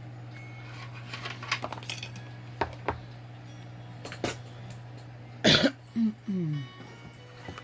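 Small clicks and clinks of craft jewelry pieces and packaging being handled and set down, over a steady low hum. About five and a half seconds in comes a short, sharp, louder sound, followed by a brief falling vocal sound.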